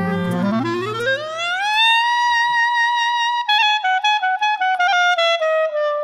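Music: a solo wind instrument glides smoothly up in pitch over about a second and a half, holds a high note, then plays a run of short notes stepping down and settles on a held lower note.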